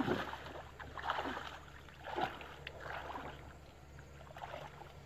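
Shallow water splashing and sloshing in several irregular bursts as a person wades and works a cast net, louder in the first three seconds and fainter after.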